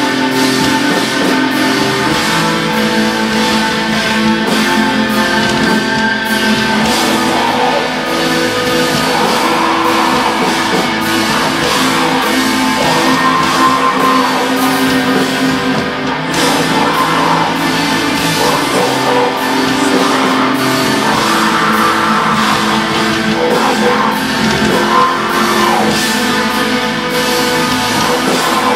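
Live black metal band playing: electric guitars holding long chords over a drum kit.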